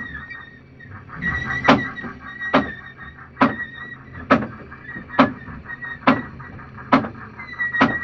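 Fishing sonar's audio output: a sharp ping just under once a second over a steady high tone, with a low steady hum beneath. The pings begin about a second and a half in after a brief pause.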